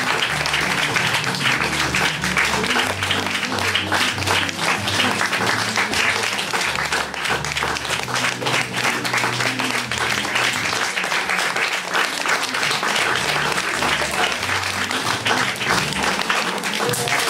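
Audience applauding over background music with a bass line.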